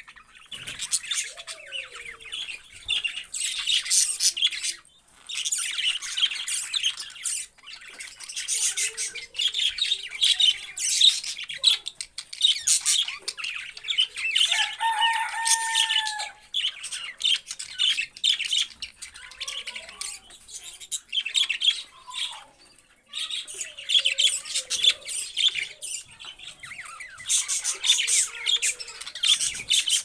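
A flock of budgerigars chattering in rapid, continuous warbling chirps, with brief lulls about five seconds in and again a little past twenty seconds. About halfway through, one bird gives a clearer, longer whistled call over the chatter.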